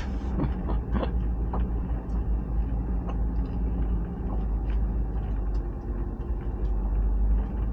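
Car driving slowly along a rough, narrow track: a steady low rumble of engine and tyres, with scattered clicks and knocks, more of them in the first second or so.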